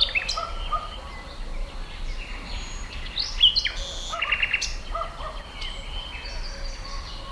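Several wild birds chirping and singing in a countryside ambience, a mix of short whistled chirps and quick trills, over a faint steady low rumble.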